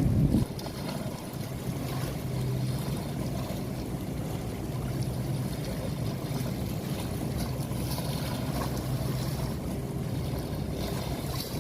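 A steady low engine hum over a wash of water and wind noise.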